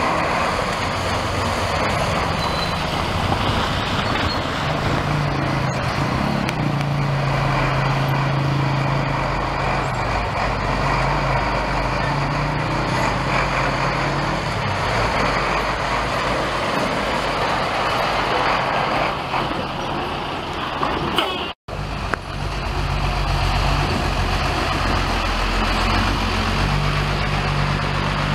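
Road vehicles (a car, a dump truck and a chiva bus) driving slowly through muddy puddles: engines running steadily, with tyres churning through water and mud. The sound drops out for a moment about three-quarters of the way through.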